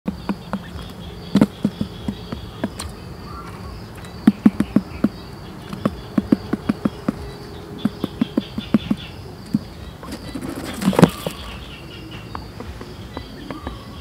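Quail pecking seed off cardboard: clusters of sharp, quick taps. About eleven seconds in, a louder flurry of wing-flapping and scuffling as the quail drops through the cardboard cover into the pit trap. A steady, high insect buzz runs underneath.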